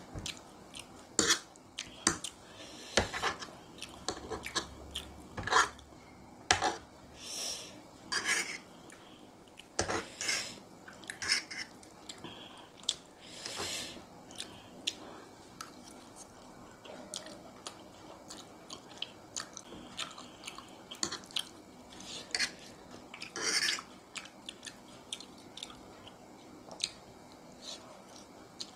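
Close-up eating sounds: spicy instant noodles and boiled egg being chewed, with a metal fork clicking and scraping against the plate in repeated sharp clicks.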